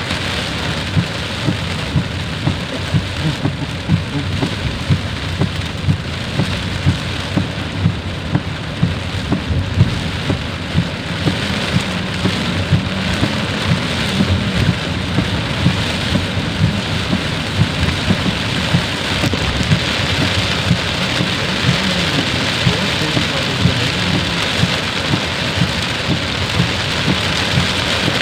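Steady heavy rainfall: a constant hiss of rain, with many sharper drop taps standing out several times a second.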